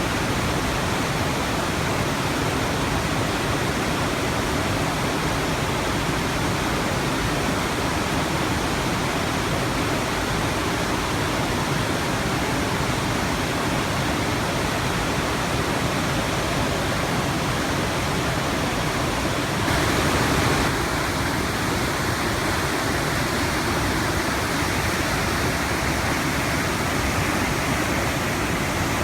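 River water rushing through a rocky gorge, running high after a typhoon: a loud, steady rush of water with no let-up, swelling briefly about two-thirds of the way through.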